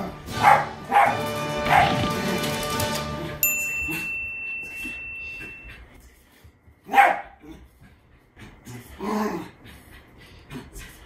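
Jack Russell terrier barking: a few quick barks over background music in the first two seconds, then, after the music stops about four seconds in, a single loud bark about seven seconds in.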